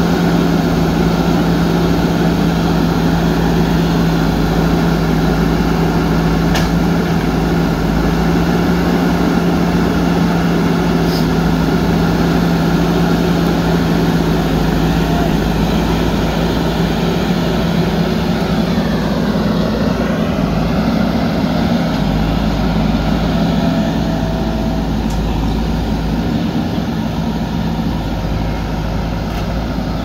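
JCB 4x4 backhoe loader's diesel engine running steadily with a constant deep hum while the machine loads soil into a tipper truck, easing off slightly near the end.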